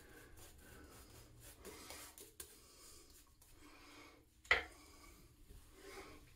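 RazoRock Mamba 70 double-edge safety razor with a Voskhod blade scraping stubble in a run of short, faint rasping strokes against the grain. A single sharp tap cuts in about four and a half seconds in.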